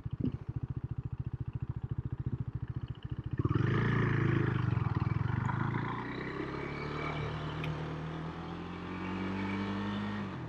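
KTM Duke 390 motorcycle's single-cylinder engine idling with a quick, even pulse, then pulling away about three seconds in. The engine note climbs steadily as it accelerates, then eases off near the end.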